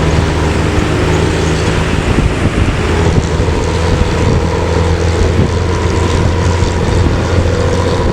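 Intercity bus's diesel engine running under steady throttle with a deep, rumbling "snoring" exhaust, over continuous road and wind noise.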